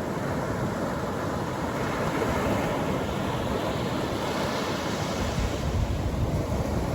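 Atlantic Ocean surf: waves breaking and washing up the beach in a steady hiss, one wave swelling louder around the middle, with a deeper low rumble building near the end.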